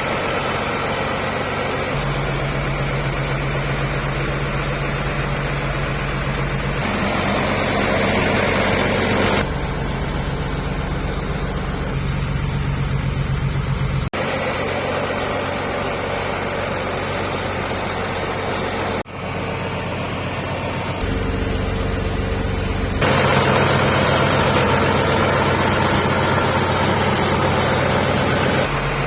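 Nissan diesel engine of an Ebro H 135 DT tractor running steadily. The tone shifts abruptly every few seconds.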